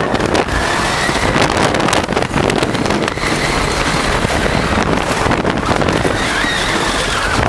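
Wooden roller coaster train running at speed along its wooden track: a dense rattling clatter of wheels on the track, with wind rushing over the microphone.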